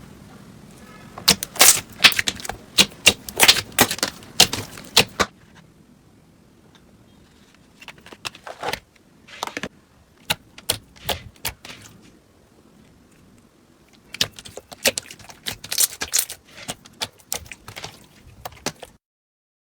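Slime being squeezed and poked by hand, giving quick runs of crisp crackling pops and clicks in three bursts, the middle one sparser.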